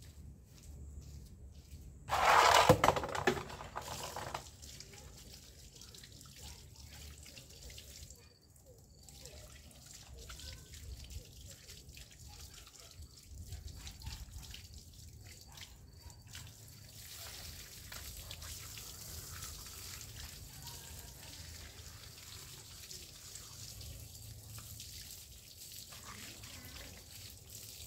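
Water running and dripping from an outdoor wall tap into a plastic basin, with small splashes and clicks. A loud rushing noise lasts about two seconds near the start.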